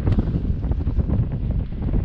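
Wind buffeting the microphone over the low rumble of a vehicle driving a rough dirt trail, with frequent short knocks and rattles.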